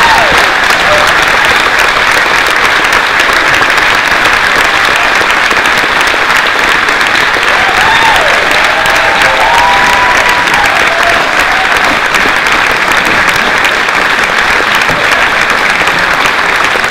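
Theatre audience applauding steadily and loudly, with a few voices calling out about eight seconds in.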